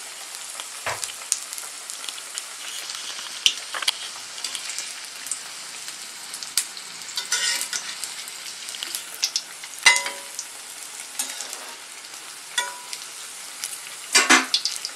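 Masala vadas made from dried pea dal deep-frying in hot oil in a kadai: a steady sizzle full of crackles. A few sharp clinks of a metal slotted spoon against the pan cut through it, briefly ringing, and the loudest cluster comes near the end.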